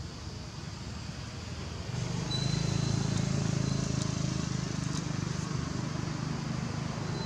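Steady low rumble of a running motor engine, growing louder about two seconds in.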